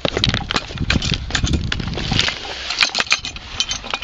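Footsteps crunching on railway track ballast, with many sharp clicks of loose stones shifting. The crunching is densest in the first two seconds and thins out after.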